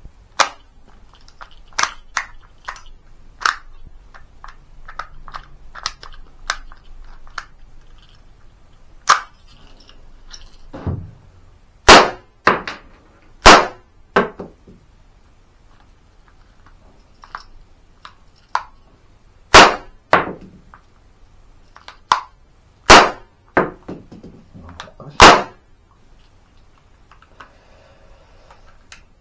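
A!CTION C96 Red9 cap-firing model gun: light metallic clicks and clacks as rounds are loaded from a stripper clip and the action is worked, then about five sharp cap shots spaced irregularly over the next dozen seconds or so, most followed by a smaller clack of the action cycling.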